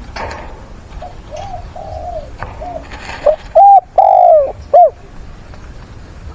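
Spotted dove cooing close to the microphone: a quieter run of arched coos, then a loud phrase of about four coos about halfway through.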